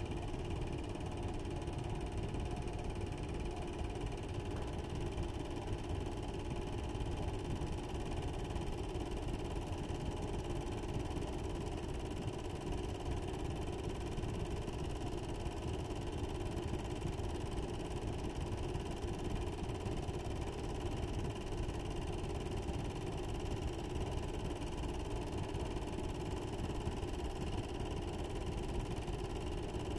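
A steady, unchanging mechanical whir with a constant hum under it.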